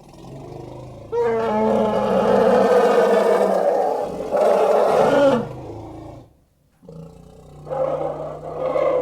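Stock monster roar sound effects used as a triceratops's voice: a long loud roar starting about a second in, a second roar that falls in pitch near the middle, a brief pause, then another roar building near the end.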